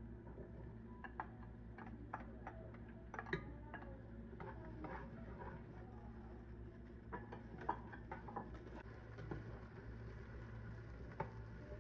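Spatula tapping and scraping against a bowl and a nonstick pot while diced onion and potatoes are stirred: irregular light clicks, over a steady low hum.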